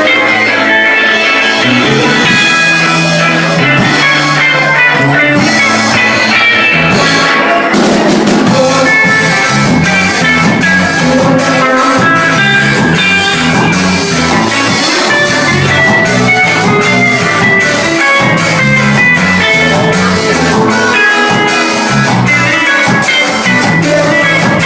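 Ska band playing loud and live: electric guitar, bass and drum kit keeping a steady beat, the drums and cymbals coming in fuller about eight seconds in.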